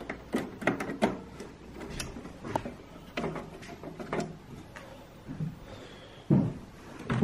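Scattered knocks, clicks and rustling as belongings are picked up and moved about in a small room, with a louder thump near the end.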